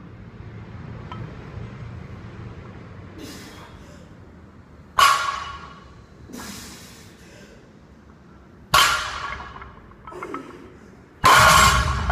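Barbell loaded with bumper plates, lifted and set down: sharp metallic clanks with a short ringing decay, about three in the middle of the lift. The loudest comes near the end, a heavy clank and thud as the bar lands on the rubber gym floor.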